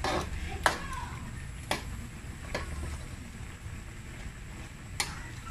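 A metal ladle clinking against a stainless steel cooking pot while stirring, four sharp knocks over a low steady rumble.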